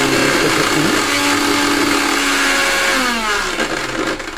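Havells Genie 500 W mixer grinder running with its small stainless-steel jar locked on: a steady motor whir that, about three seconds in, falls in pitch and fades as the motor is switched off and winds down.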